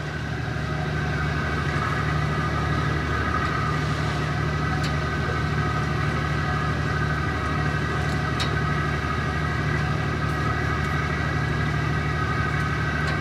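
Steady drone of an idling engine or similar machinery, a low hum with a few steady higher tones over it, with a couple of faint clicks about five and eight seconds in.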